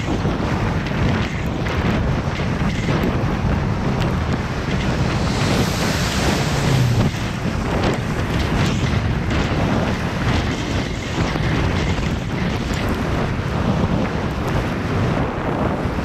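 Wind buffeting the microphone of a camera on a moving bicycle: a steady, rough rush with no voices, and a stronger, hissier gust about six seconds in.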